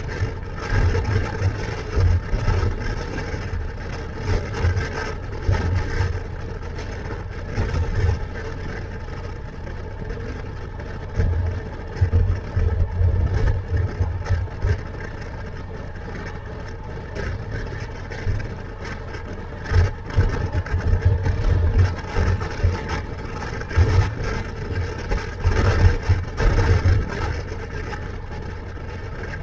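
Motorcycle engine running at road speed, with wind buffeting the helmet-mounted microphone in irregular low gusts.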